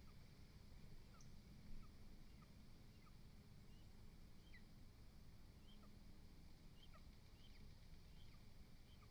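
Faint, scattered short bird chirps, a few a second at irregular intervals, over a steady low rumble.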